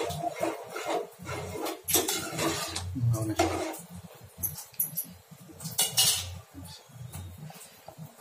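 Steel ladle stirring a thick curry in a metal pot, scraping and knocking against the pot's side with several sharp clinks.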